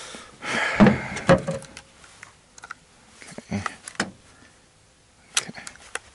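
Several separate knocks and clunks of a long gun being handled and set down in a pickup truck's bed, the loudest about a second in.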